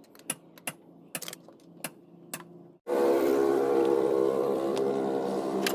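Sharp metallic clicks and taps of hand tools working on engine parts. About three seconds in, a hard cut brings in a loud, steady running machine with a constant hum.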